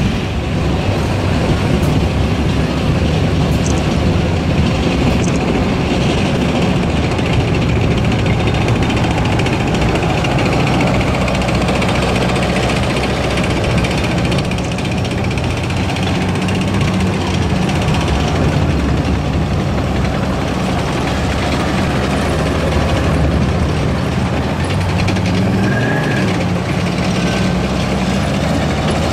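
Military vehicles driving past at close range: trucks, then Type 74 tanks with their air-cooled V10 diesel engines running loudly and steadily, and their tracks on the asphalt.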